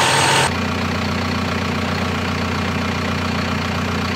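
Heavy-equipment diesel engine running loud with a steady whine, which changes abruptly about half a second in to a steady, lower idle.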